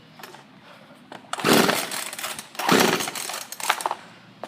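Poulan Pro 42cc two-stroke chainsaw being pull-started from cold: two short, loud bursts about a second apart, with a few clicks after, and no steady running between.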